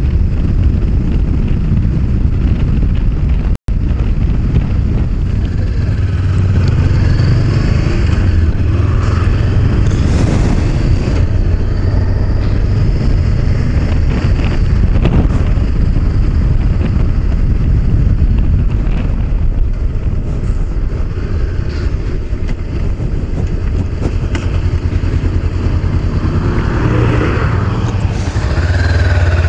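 Honda CB500X parallel-twin engine running at road speed under a steady low rumble of riding noise, heard from a camera on the bike. The sound cuts out for a split second about three and a half seconds in.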